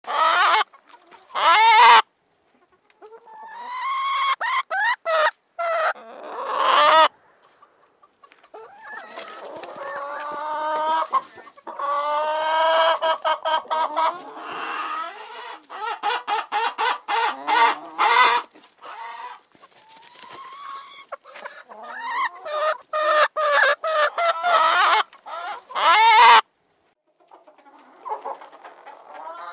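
Chickens clucking: a long run of repeated calls with short breaks. The sound cuts off sharply twice, about two seconds in and near the end, and the calls after the second break are fainter.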